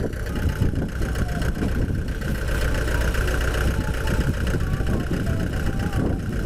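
Diesel engine of heavy construction equipment running steadily, a low rumble with a steady high whine above it.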